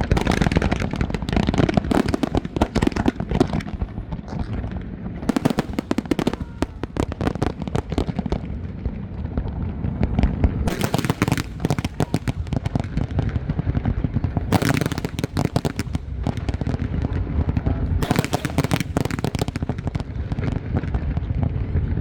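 Fireworks display: about six rapid crackling salvos, each a second or two long and a few seconds apart, over a steady low rumble of bursting shells.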